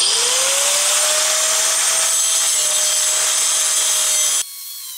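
Electric angle grinder with a thin cutoff wheel cutting through a rusted steel control-arm bolt. The motor whine rises as it spins up, then holds steady under a loud, continuous grinding hiss. Near the end the grinding stops abruptly and only a quieter whine remains.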